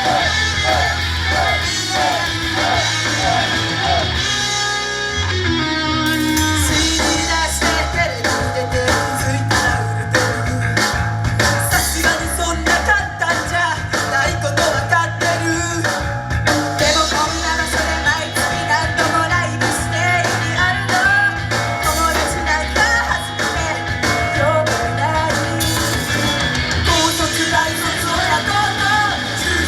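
Loud rock-style idol song played live, with guitars, drums and singing. About four seconds in, the band thins out briefly, then the full band comes back in with a steady beat.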